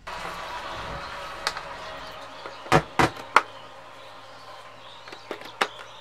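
Quarter-inch jack cables being handled and plugged into the keyboard's output sockets: a few sharp clicks and knocks, three loud ones in quick succession about three seconds in, then lighter clicks, over a steady hiss.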